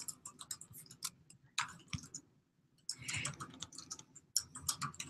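Typing on a computer keyboard: quick, light key clicks in irregular runs, with a pause of about a second midway.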